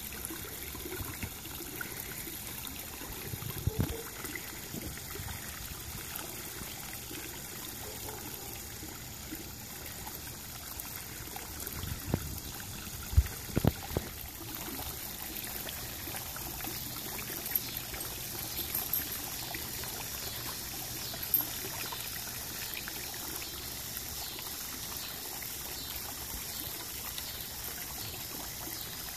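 Water jetting from PVC pipe spouts into a plastic kiddie pool, a steady pouring and trickling with water spilling over the rim. A few short dull knocks stand out, the loudest about 13 seconds in.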